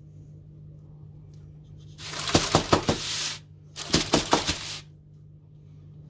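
Two bursts of crinkling and scraping, about a second each, as the cake pan is shifted on its sheet of baking parchment, over a steady low hum.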